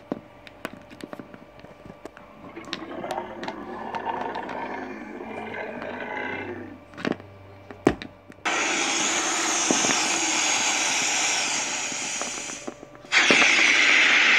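Small plastic toy figures clicking and knocking against a wooden tabletop as they are moved about by hand. About eight and a half seconds in, a loud steady rushing hiss starts abruptly, breaks off for a moment near the end, and comes back louder.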